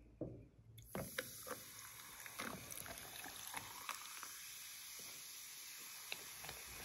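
Cola poured from a plastic bottle over ice cubes in a glass: a few sharp clicks and cracks of the ice, then a steady fizzing hiss with small pops as the carbonated foam rises.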